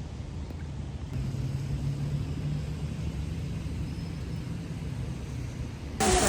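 Low, steady rumble of a vehicle with a faint hum. Near the end it cuts suddenly to the loud hiss of heavy rain pouring.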